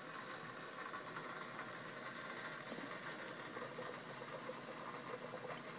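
Water boiling in the glass jug of a Bodum Santos siphon coffee brewer: a faint, steady bubbling. Vapor pressure is driving the water up the siphon tube and agitating the coffee grounds in the upper funnel.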